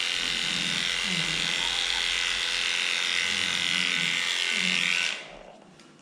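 Electric dog-grooming clippers running with a steady buzz, then switched off about five seconds in.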